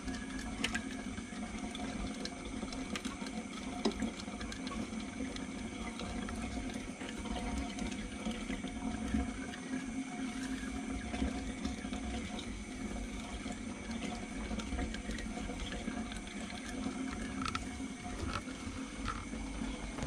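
Steady running and trickling water in a planted aquarium, the sound of its filter or pump circulation, with a few faint clicks.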